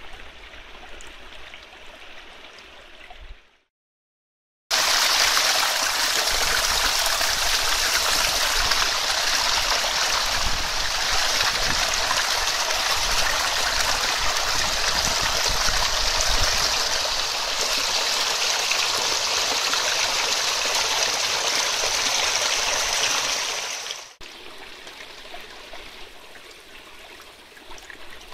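Small brook running over stones, a steady rush and splash of water. After about four seconds it cuts out briefly, then comes back much louder for some twenty seconds, where the water tumbles down a little cascade, before dropping to a softer trickle near the end.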